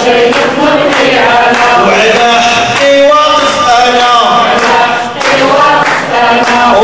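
A man's voice chanting through a handheld microphone and loudspeaker, in drawn-out pitched phrases with only short breaks.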